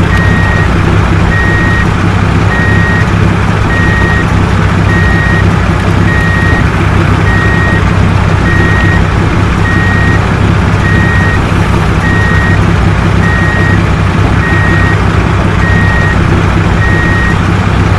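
A truck's reversing alarm beeping steadily, a little under twice a second, over a continuous low engine rumble.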